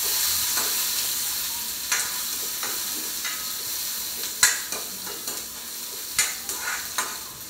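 Hot oil sizzling in a small kadai as mustard seeds, onion, chilli and curry leaves fry for a tempering, the sizzle easing a little after the start. A metal spoon stirs and clicks against the pan a few times, most sharply about halfway through.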